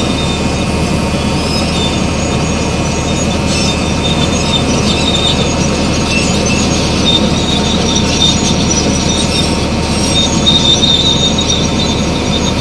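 Crawler bulldozer travelling, its diesel engine running steadily under a high squeal from the steel tracks that comes and goes.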